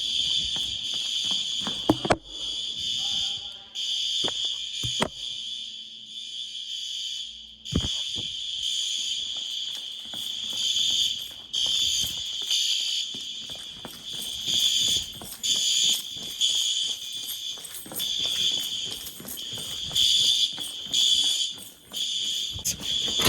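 School fire alarm bells ringing continuously during a monthly bell test, a steady high-pitched ring that swells and dips in loudness. A few sharp knocks sound in the first several seconds.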